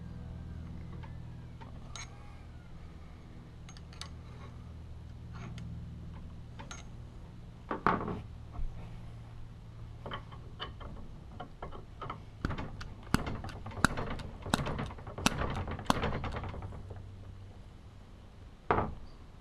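Metal parts of a hot tapping machine clinking and knocking as they are handled and fitted during packing work: scattered taps, then a quick run of sharp clicks in the second half and one louder knock near the end, over a low steady hum.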